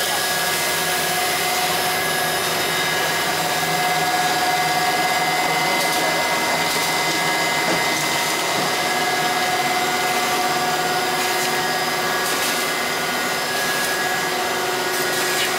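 Bottle capping and labeling machinery of a lubricating-oil packaging line running: a steady mechanical whir from motors and conveyor, with several held tones and a few faint clicks.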